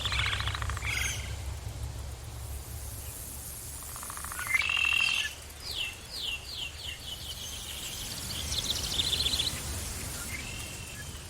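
Forest birds calling and singing: short trills and chirps, a louder call about halfway through followed by a quickening run of short notes, over a steady low rumble of background noise.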